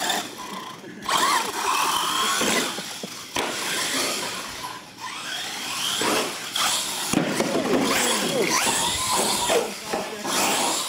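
Electric motors of R/C monster trucks whining, the pitch rising and falling as the throttle is worked, with tyres on concrete and several sharp knocks as the trucks hit ramps and tumble.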